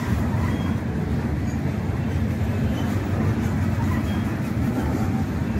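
Freight train of covered hopper cars rolling past, a steady low rumble of steel wheels on the rails.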